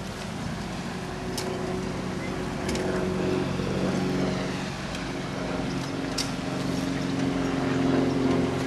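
Engine of the Countess of Evesham river boat running steadily, growing louder toward the end, with three short clicks along the way.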